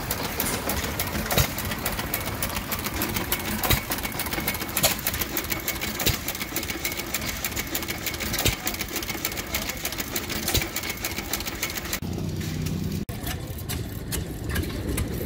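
Antique flywheel gas engine running and driving a Domestic water pump, the pump plunger and linkage clattering with rapid, even clicks. About twelve seconds in this gives way to a lower, steadier hum.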